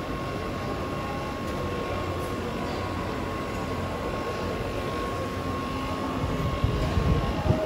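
Steady rumbling background noise with a faint, steady high hum, and a few low thumps near the end.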